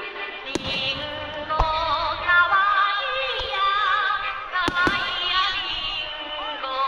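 A pop song with a female vocal played over loudspeakers for a fireworks show. Firework shells burst as sharp bangs about half a second in, again at about a second and a half, and twice in quick succession near five seconds.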